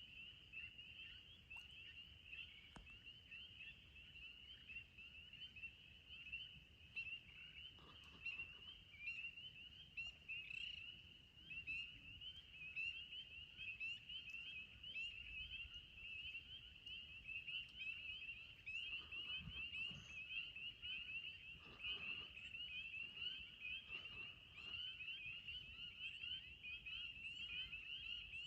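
A chorus of spring peeper frogs calling around a pond, many short, high, rising peeps overlapping without a break, over a faint low rumble. They are calling in the darkness of a near-total solar eclipse, as they would at dusk.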